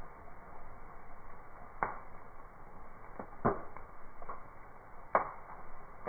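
Log campfire crackling, with three sharp pops about a second and a half apart and fainter crackles between them, over a soft steady hiss.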